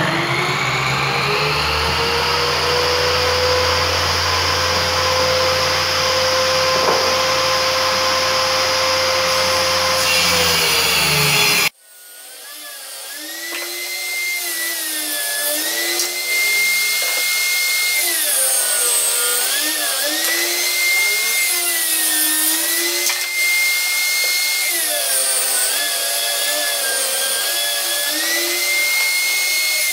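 Table saw switched on, its motor whine climbing as the blade spins up, then running steadily. After a sudden break it runs again while ripping a 1x4 board into 1x2 strips, the whine dipping in pitch each time the blade bites into the wood and rising back between passes.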